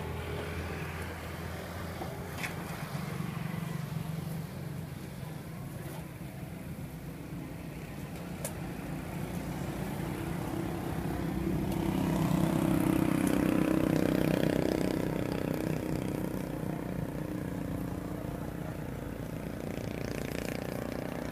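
Street traffic: a motor vehicle's engine running steadily, growing louder a little over halfway through and then fading as it passes.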